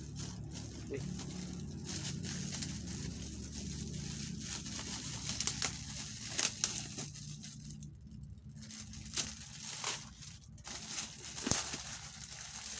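Clear plastic wrap crinkling and tearing as it is cut with scissors and pulled off a pair of sneakers, with a few sharp snaps and clicks.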